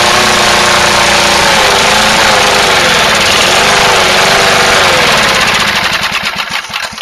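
1981 Toro Whirlwind push mower's single-cylinder engine running loud on gas sprayed from a can of gum-remover freeze spray into its air intake, its speed wavering up and down. Near the end the spraying stops and the engine slows until its firing strokes come one by one, and it dies.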